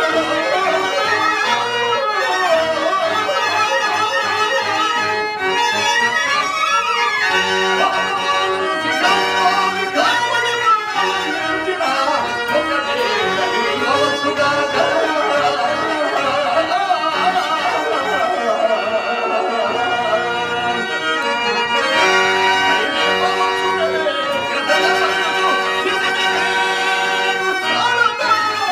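A male stage actor singing a Telugu verse in long, wavering held notes into a microphone, accompanied by a harmonium.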